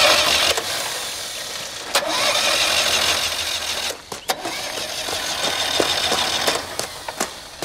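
Citroën 2CV engine being cranked on the starter without catching, with a short break about four seconds in; condensation on the ignition contacts keeps it from firing.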